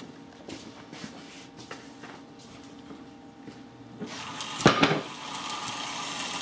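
A wooden board lifted off an elevated toy-train track: light wooden knocks and clicks, then a louder clatter about four and a half seconds in.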